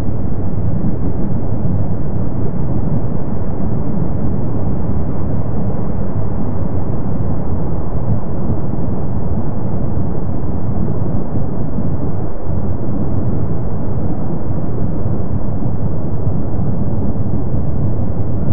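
Lava fountains erupting from Kilauea's lava lake: a steady, loud, low rumble with no separate bursts.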